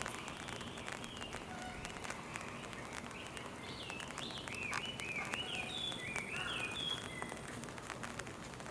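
A songbird singing a run of quick swooping whistled notes, busiest in the middle, over a steady patter of rain.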